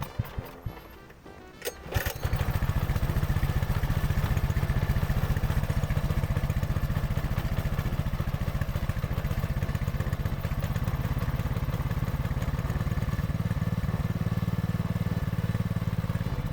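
Small engine of a motorised transport cart starting about two seconds in and running with a fast, even firing beat.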